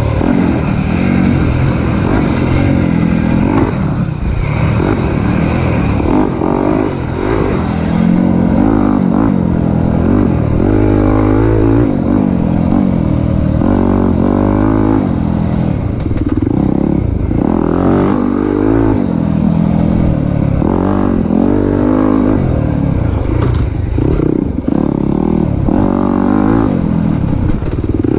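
Dirt bike engine ridden hard, heard up close from the rider's position: the revs climb and drop back every second or two as the throttle is worked through the turns of the trail.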